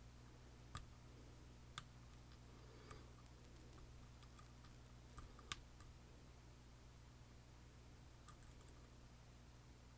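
A few faint, sharp metallic clicks, irregular and a second or more apart, over a steady low hum: lock-picking tools handled against and inside a lock.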